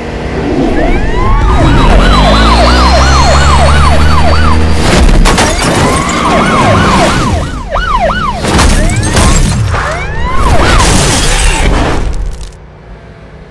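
Police siren sound effect in a fast yelp, its pitch rising and falling about twice a second in several runs, over a loud low rumble and booming effects with loud hits. It cuts off suddenly near the end.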